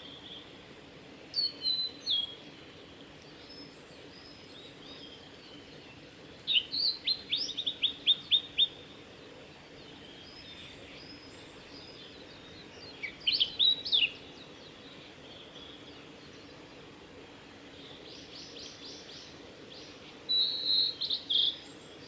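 Male blue-and-white flycatcher singing: four song phrases of high whistled notes several seconds apart, the second a quick run of repeated notes. Faint high chirps sound between the phrases.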